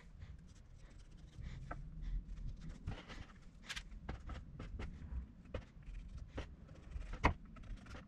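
Faint scraping and rubbing with scattered light ticks as a plywood template and pencil are worked around a wooden mast, with one sharper knock about seven seconds in.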